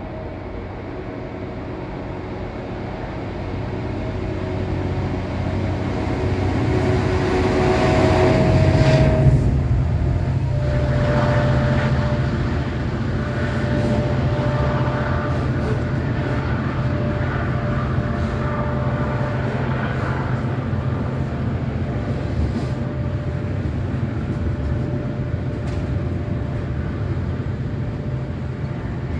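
A Class 66 diesel locomotive's EMD two-stroke diesel engine works at full power (notch 8), hauling a heavy freight train up a gradient. It grows louder as it approaches and passes about nine seconds in, its pitch dropping as it goes by. After that comes a steady sound of the freight wagons rolling past with occasional clicks, while the engine's drone carries on.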